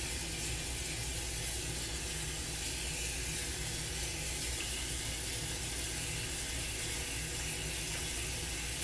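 Kitchen faucet running steadily into a bowl of raisins in a stainless steel sink, filling it with rinse water.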